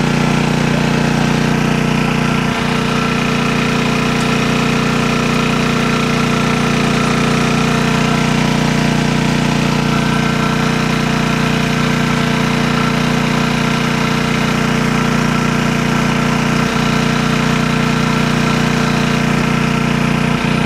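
A small engine running at a steady, unchanging speed, a constant drone, with a couple of brief knocks about two and a half seconds in and again near the end.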